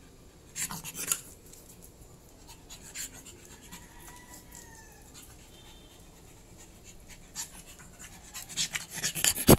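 Pug puppy scuffling about on wet concrete: short scratchy clicks and scrapes from its paws in a few quick clusters, the busiest and loudest near the end.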